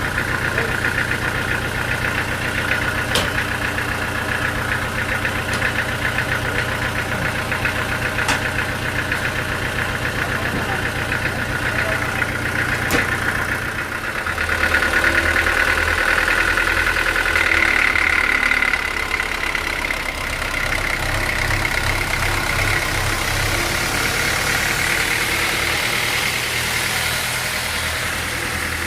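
Sawmill machinery running steadily: an engine-like rumble with a high whine on top and a few sharp ticks. About halfway through, the low note changes and the sound grows louder for a few seconds.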